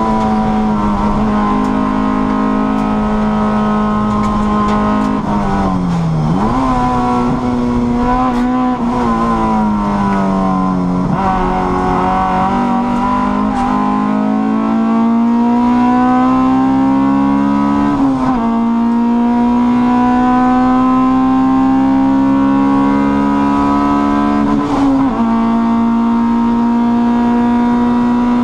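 Honda Cup race car's four-cylinder engine under racing load, heard from inside the cockpit. The revs fall twice as it slows for corners, about six and eleven seconds in, then climb steadily, with sharp drops in pitch at quick upshifts at about eighteen and twenty-five seconds.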